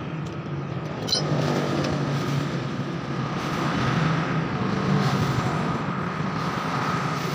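Steady low mechanical background hum with a faint high whine, and a small high click about a second in.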